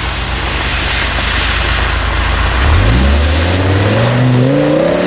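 Audi RS6 accelerating: the engine runs at a steady note, then from about halfway through its revs climb steadily and the pitch rises.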